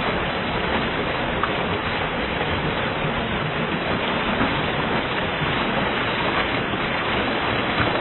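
Muddy, silt-laden river water pouring over a rock ledge in a small waterfall, a steady loud rush with no let-up.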